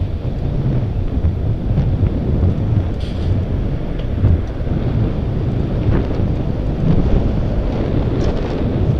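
Wind buffeting the microphone of a camera moving along a road: a steady low rumble, with a few faint ticks.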